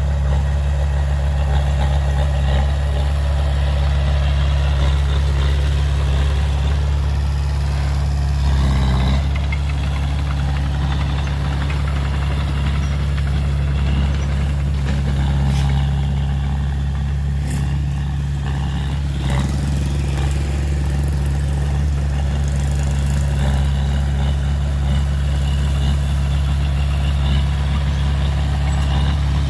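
Heavy diesel engine of a dump truck or earthmoving machine running steadily at idle, a low, even hum.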